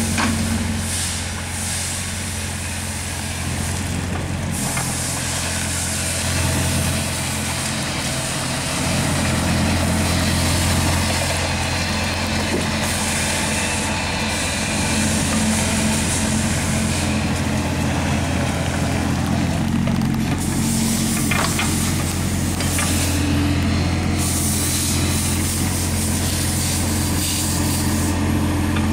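Kubota U20 mini excavator's diesel engine running steadily while the boom and bucket are worked on the hydraulics. The engine gets louder under load about a third of the way in and stays up.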